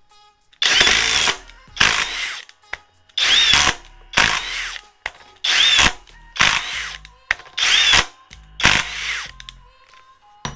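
FLEX 24V cordless impact driver running in short bursts to drive four fasteners, two runs each, hammering under load. There are eight bursts of about half a second each, with short pauses between.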